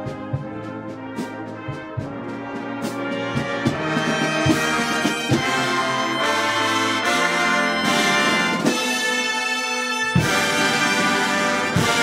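Marching wind band playing: brass and saxophones over drum strikes, swelling louder about four seconds in, with a brief drop shortly before the end and then a loud full-band entry.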